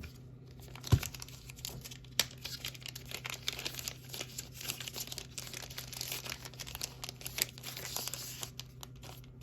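Packaging being unwrapped and handled, with continuous crinkling and rustling. A sharp knock comes about a second in, and a lighter one just after two seconds.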